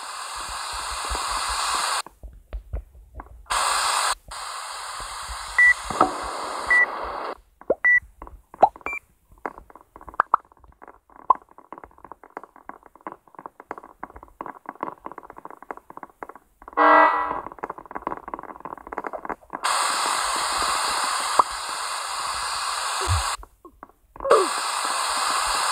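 Electronic static hiss that cuts in and out in blocks, with a few short high beeps six to nine seconds in and scattered clicks in the quieter stretch between.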